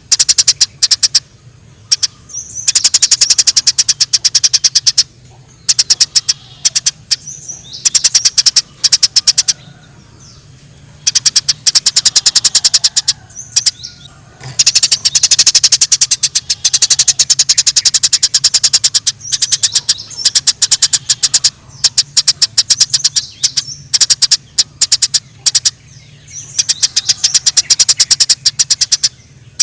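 Eurasian tree sparrows chattering: fast runs of sharp chirps in bouts of one to three seconds with short gaps, the agitated calls of sparrows fighting.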